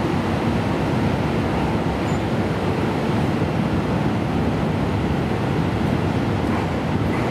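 Steady low rumble of the Crystal Express diesel train's engines, with no clicks or changes.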